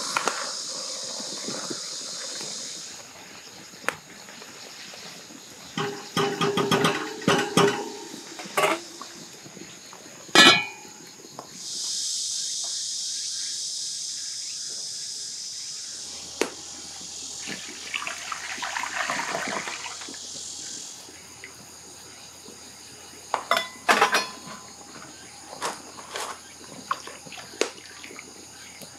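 Cicadas buzzing in two long steady stretches, at the start and again for several seconds midway. Between them comes the clatter of cooking utensils knocking and clinking on pots and pans, with one sharp metallic clink about ten seconds in.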